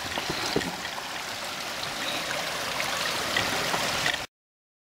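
Water running steadily through a drainage channel blocked by a beaver dam, an even rush with small trickling clicks and splashes. It cuts off abruptly about four seconds in.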